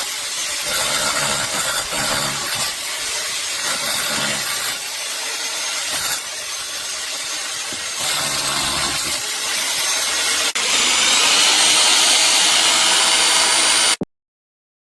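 Electric rotary hammer drill running under load, in several short cut-together stretches that change abruptly, then stopping suddenly near the end.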